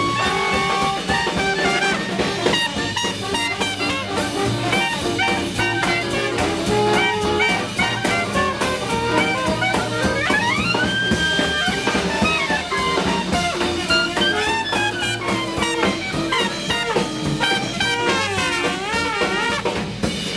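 Small swing jazz band playing live: clarinet, trumpet and trombone over double bass, drum kit and guitar. About ten seconds in, one horn slides up into a long held high note.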